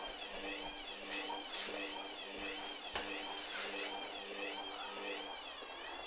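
Hoover Dynamic washing machine on a spin cycle: a motor whine whose pitch wavers up and down in even waves a little under twice a second, over a steady hum. Near the end the hum stops and the sound begins to fade as the drum slows.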